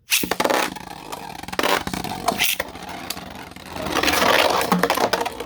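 Beyblade spinning tops launched into a plastic stadium, then whirring and scraping across the floor with several sharp clashes as they hit each other, getting louder and denser about four seconds in.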